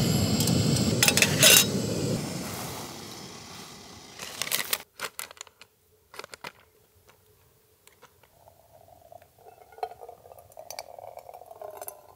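A canister gas camp stove burner running with a steady rushing noise that fades away over the first few seconds. Then come a few sharp crinkles and clicks from a paper coffee pouch being opened. Near the end, hot water is poured from a small kettle onto a drip-coffee filter in a titanium mug, with light clinks.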